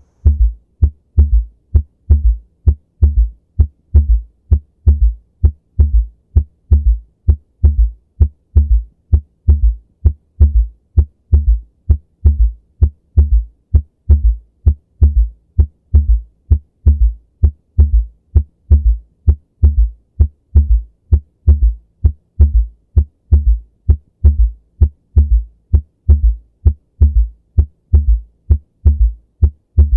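Recorded heart sounds with a third heart sound (S3 gallop): low thumps repeating steadily, the extra sound falling just after the second heart sound and caused by rapid filling of the left ventricle.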